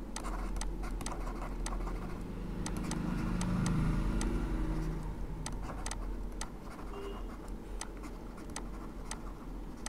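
Stylus writing by hand on a tablet or pen display: irregular light ticks and faint scratching as the words are written out, over a low steady hum.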